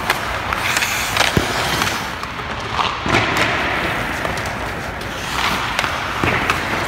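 Hockey skates scraping and carving on rink ice, with several sharp clacks of stick and puck and dull thuds of goalie pads dropping onto the ice.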